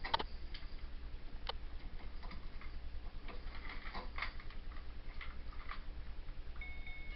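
African grey parrot making scattered sharp clicks at an uneven pace, over a steady low hum. A thin, steady high tone starts shortly before the end.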